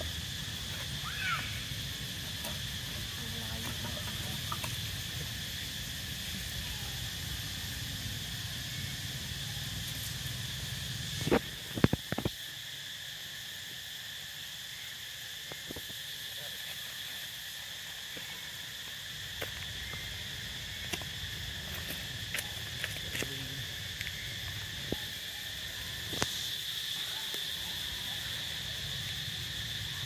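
Steady insect chorus, a continuous high-pitched drone. A low rumble fades out about twelve seconds in, just as a short cluster of sharp knocks, the loudest sounds here, is heard, followed by a few scattered clicks.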